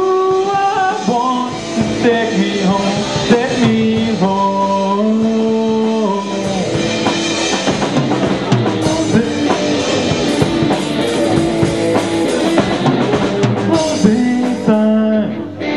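Amateur rock band playing live: drum kit, electric guitar and bass guitar, with held, sliding melodic notes over a steady beat.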